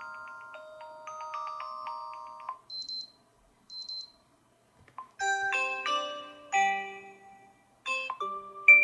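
Xiaomi Redmi 10 default alarm tones playing one after another from the phone's speaker. A melodic chime tune stops about two and a half seconds in, two short high beeps follow, then a new marimba-like tune starts about five seconds in, and another begins near the end.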